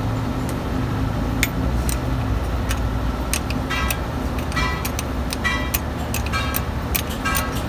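Sharp metallic clicks and taps of a ring spanner working the nuts on a truck engine's injector fuel lines, with several short high ringing notes, over a steady low rumble.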